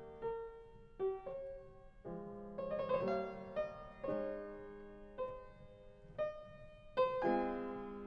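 Solo piano music: slow notes and chords struck about once a second, each left to ring and fade.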